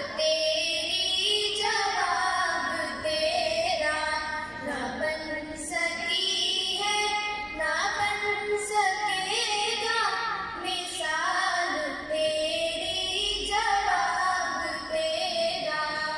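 Two girls singing an Islamic devotional song together into stage microphones, in phrases of about two seconds with long held notes and short breaks between them.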